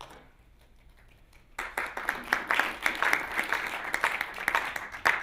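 Audience applauding: many hands clapping together, starting about a second and a half in and stopping just before the end.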